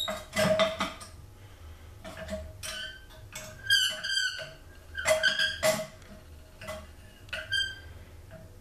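Steel swing-arm lid of a backyard metal-casting furnace being lifted and swung open on its pivot and latch. Metal squeaks and clanks come in about eight short, separate goes.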